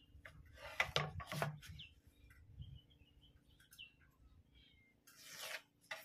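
A few light knocks and scrapes as a steel combination square is handled and set against a plywood sheet, then a longer scrape about five seconds in as it is slid along the board. Faint bird chirps sound in the background.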